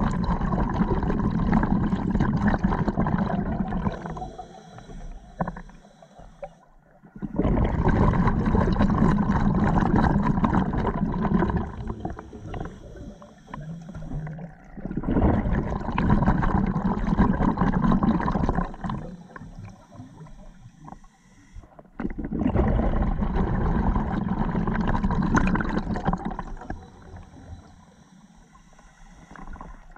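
Open-circuit scuba regulator breathing heard underwater: four long exhalations as rushes of bubbles, each followed by a quieter inhalation with a thin hiss from the regulator, about one breath every seven to eight seconds.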